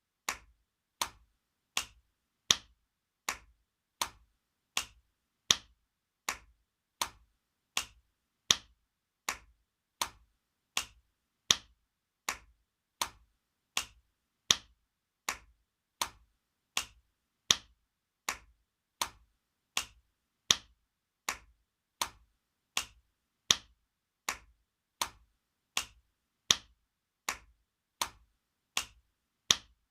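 Spanking sound effect: sharp open-hand slaps on skin, repeating evenly at about three every two seconds, with every fourth slap louder as the effect loops.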